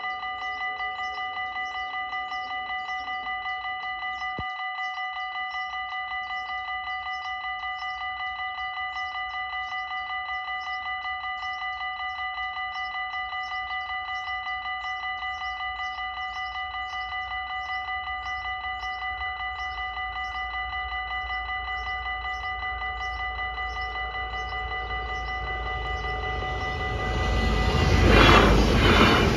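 Dutch level-crossing warning bells ringing steadily in a fast repeating pattern, while the barrier mechanism hums for the first few seconds as the arms come down and stops about four seconds in. Near the end a LINT 41 diesel multiple unit approaches and rumbles loudly across the crossing, over the bells.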